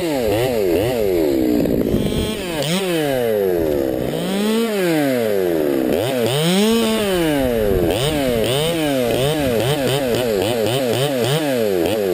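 Two-stroke chainsaw cutting spruce wood, its engine pitch rising and falling over and over as the throttle is opened and eased and the bar loads up in the cut, with quicker swings in the second half.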